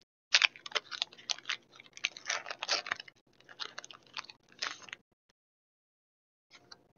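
Foil wrapper of a Pokémon TCG booster pack crinkling as it is torn open by hand. The dense crackle stops about five seconds in.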